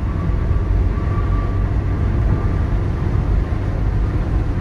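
Car driving at highway speed, heard from inside the cabin: a steady low rumble of tyres on the road and engine.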